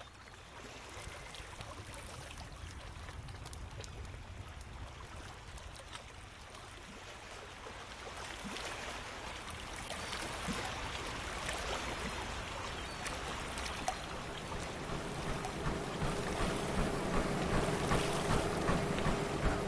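Rushing, splashing water, like a pool's fountain or waterfall feature, with no steady tone, growing louder through the second half.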